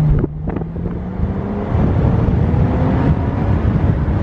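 BMW Z4 3.0's straight-six heard from inside the cabin on the move: a steady engine hum that cuts away suddenly about a quarter second in, then low road and wind rumble with a faint rising engine tone underneath.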